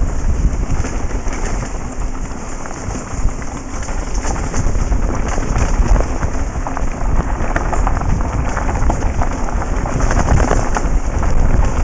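Downhill mountain bike ridden fast over a dirt and gravel trail: a steady low rumble of wind buffeting the helmet-mounted microphone, with a dense crackle of tyres on loose stones and the bike rattling. The crackle thickens in the second half as the trail turns to gravel.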